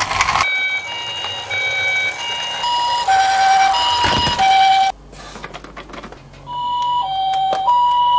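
Toy ambulance's electronic siren sounding the two-tone hi-lo pattern of a Japanese ambulance, alternating a higher and a lower note. It cuts off about five seconds in and starts again about a second and a half later.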